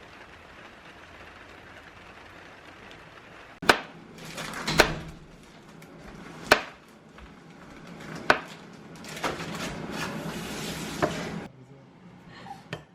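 Kitchen food-preparation noises: a handful of sharp utensil knocks, spaced about one and a half to two seconds apart, with noisy rustling between them, after a few seconds of steady low hiss.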